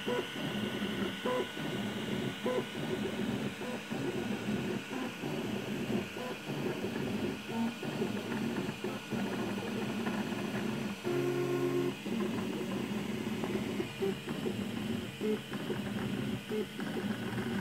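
Dagoma DiscoEasy200 FDM 3D printer running a print: its stepper motors whir and buzz in short tones that jump in pitch as the print head and bed move, over a steady hiss. About eleven seconds in, one longer move holds a steady tone for about a second.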